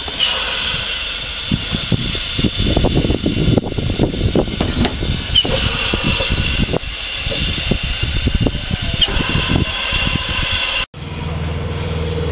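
Small 15-inch-gauge steam locomotive 'The Bug' standing with a continuous hiss of steam, over irregular low rumbling and knocks. After a cut near the end, a steady low hum takes over.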